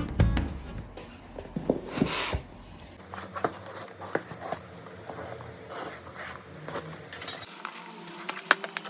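Hands handling packaging and small items during an unboxing: scattered light clicks and taps, with a short rustle about two seconds in.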